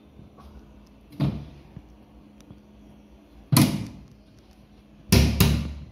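Wooden kitchen cupboard being handled: a knock about a second in, a louder bang about three and a half seconds in, and two loud bangs close together near the end, like its doors being shut.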